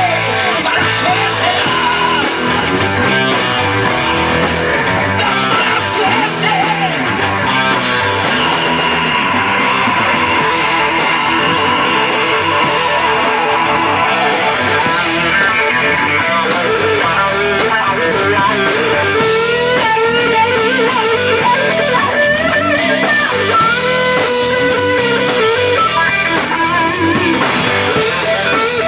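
Hard-rock band playing, with an electric guitar taking a lead solo of bent, wavering notes over the band from about halfway through.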